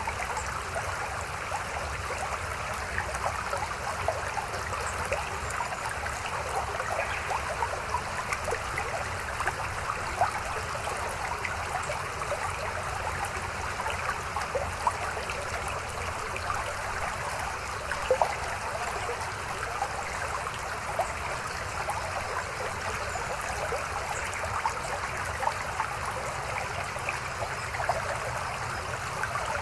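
Mountain stream flowing and splashing over rocks: a steady babbling rush dotted with small sharp splashes.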